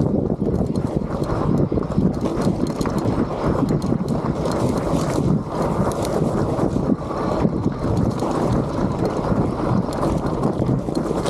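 Electric mountain bike rolling fast down a rocky trail: tyres crunching over rock with many small knocks and rattles from the bike, and wind buffeting the microphone.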